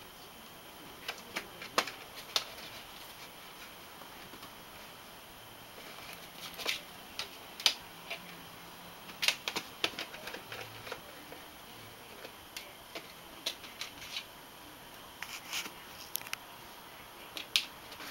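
Kitten pawing and rummaging among dry plant stems in a plastic planter: light clicks, taps and brief rustles at irregular intervals.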